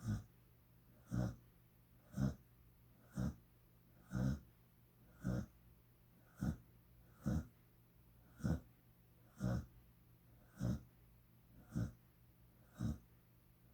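Dog snoring in its sleep: short, regular snores about once a second, each one a brief low rasp.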